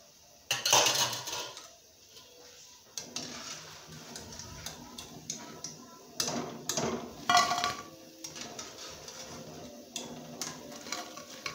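A metal skimmer clinking and scraping against an aluminium kadhai as fried pakoras are lifted out of the oil, with louder clatters about half a second in and again around six to seven seconds in.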